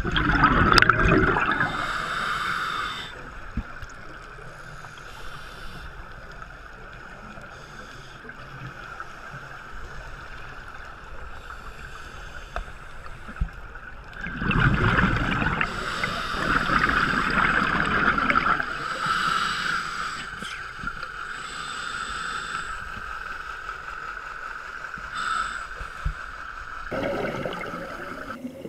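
Underwater audio from a diver's camera: a scuba diver's exhaled bubbles gurgling up from the regulator in bursts, at the start, for several seconds about halfway through, and briefly near the end, over a steady hiss.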